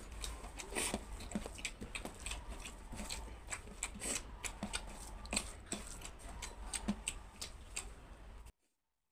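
Fingers squishing and mixing rice into egg curry gravy on a stainless steel plate, a close run of wet, sticky clicks and crackles. It cuts off suddenly near the end.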